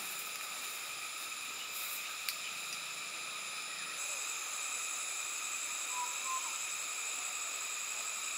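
Insect chorus: a steady, shrill, unbroken drone in several high pitches that grows brighter about four seconds in. A few faint chirps, like a bird calling, come about six seconds in.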